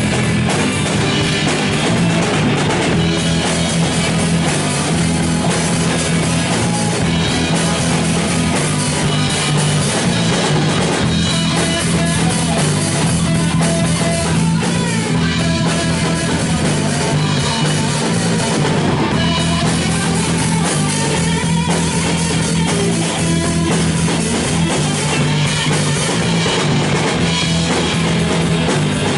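Live rock band playing an instrumental passage: distorted electric guitar and bass over a drum kit, loud and continuous.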